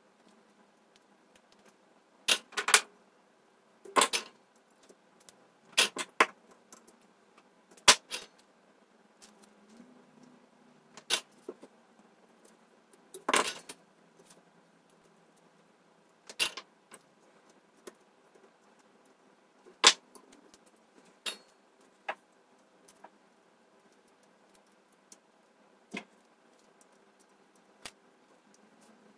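Irregular sharp clicks and taps, a dozen or so, from handling a soldering iron, small LEDs and a circuit board while soldering, over a faint steady hum.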